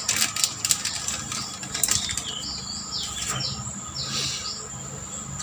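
Plastic parts packet crinkling and rustling with many small crackles as it is torn open by hand to take out a new oil seal, busiest in the first couple of seconds. A few bird chirps sound in the background about halfway through.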